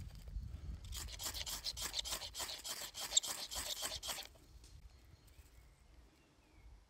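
Knife spine scraped down a ferrocerium (ferro) rod in quick rasping strokes, about four a second, over a pile of wood shavings to throw sparks; the scraping stops a little past the middle.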